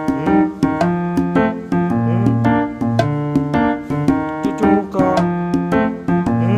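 Background piano music: notes and chords struck at a steady pace.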